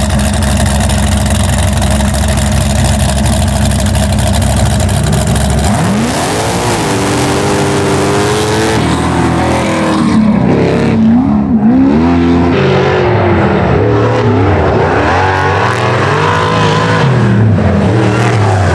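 Off-road race engines of a monster buggy and a trophy bug: a steady loud drone at first, then, about six seconds in, hard revving as they launch and race, the pitch climbing and dropping over and over.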